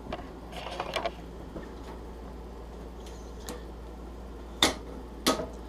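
Scattered small clicks and knocks of a push mower's throttle cable and control parts being worked into place by hand, with a few sharp clicks in the second half.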